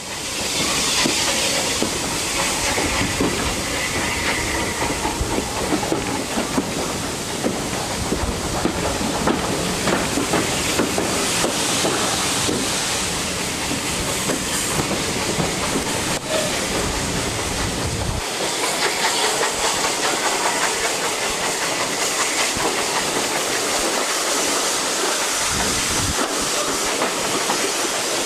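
Steam-hauled train heard from an open carriage window: steam hissing from the locomotive and the coaches rattling along the track. A heavy low rumble drops away about two-thirds of the way through, while the hiss carries on.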